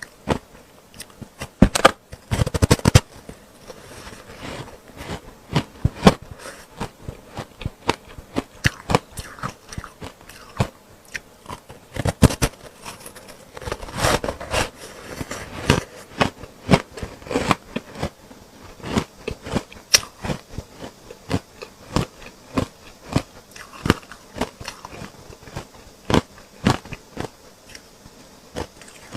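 Chunks of ice dusted with matcha powder being bitten and chewed: sharp, irregular crunches and cracks, with denser bursts of crunching about two seconds in, around twelve seconds and around fourteen seconds.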